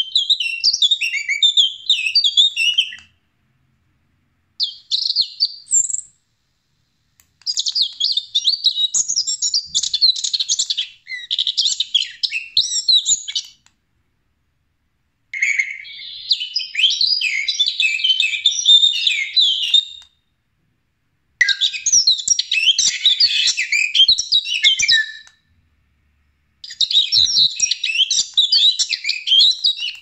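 Recorded bird songs played through the small speaker of an electronic bird caller (hunting decoy MP3 player): dense, rapid high chirping that stops dead and starts again about five times, each time after a silent gap of a second or two, as the player skips from track to track.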